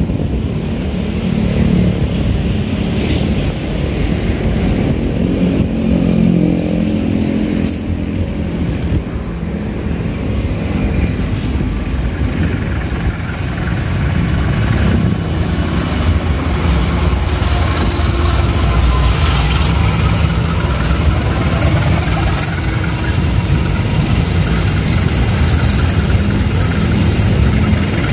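Diesel locomotive hauling a container freight train, its engine rumbling steadily as it approaches and passes, louder in the second half, with wheels clicking over the rails as the loaded container flatcars go by.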